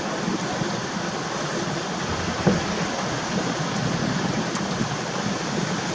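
Waterfall: a steady rush of falling water, with one short knock about two and a half seconds in.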